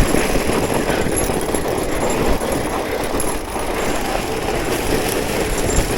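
Fat bike rolling over packed snow: a steady, grainy crunch and rumble from the wide tyres.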